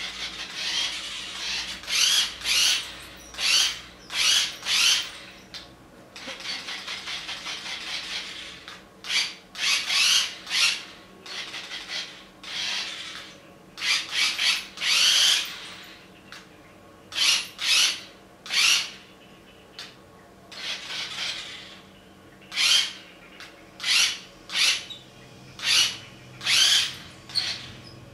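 Toy remote-control vehicle driven in short spurts: repeated bursts of electric-motor and gear whirring, each a second or less, with a stretch of rapid clicking about six seconds in.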